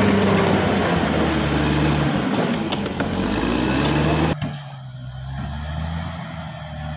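Caterpillar D6R XL bulldozer's diesel engine running under load with heavy rattling noise, its note dropping about half a second in, and a few sharp clanks near the middle. About four seconds in the high noise cuts off suddenly, leaving a quieter low engine hum.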